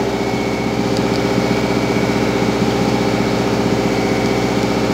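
An engine running steadily at idle, a constant hum with an even throb.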